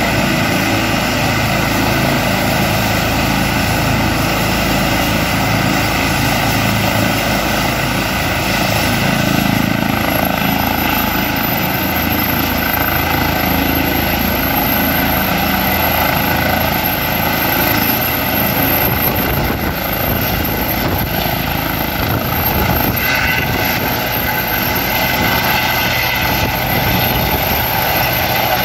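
Airbus H135 trauma helicopter running on the ground with its rotor turning. A steady rotor and turbine sound carries a high whine that rises in pitch about ten seconds in as the engines spool up, and it lifts off near the end.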